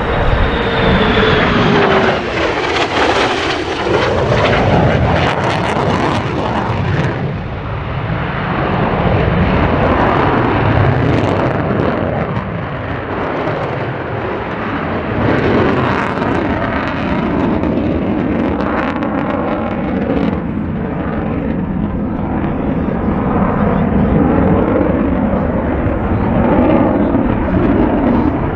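F-35A Lightning II fighter jet with its single Pratt & Whitney F135 afterburning turbofan, flying a demonstration pass. A whine falls in pitch over the first few seconds as the jet goes by, then a loud, steady jet noise carries on with a slowly shifting hiss.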